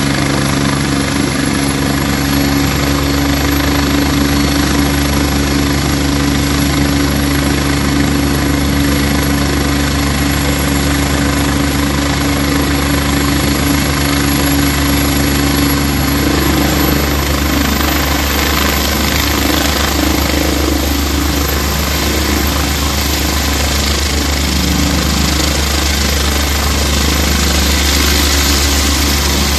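Agusta AW109 Power twin-turbine helicopter running on the helipad with rotors turning, a steady low rotor hum under a high turbine whine. About halfway through the whine rises slightly in pitch and the noise grows fuller and a little louder toward the end as power comes up for takeoff.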